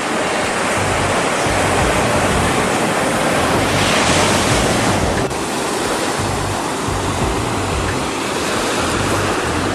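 Ocean surf washing continuously, swelling a little about four seconds in, with wind gusting on the microphone.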